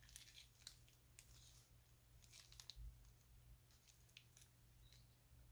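Faint, short crackles of a thin clear plastic piping bag being squeezed as the last of the blue slime is pushed out of its tip, over a low steady hum.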